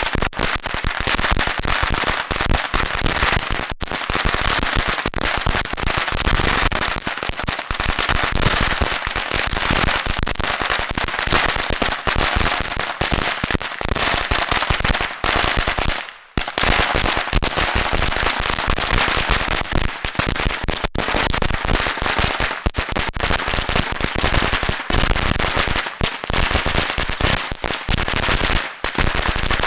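A long strip of Black Cat firecrackers going off in a dense, unbroken run of rapid bangs, with a brief lull about sixteen seconds in.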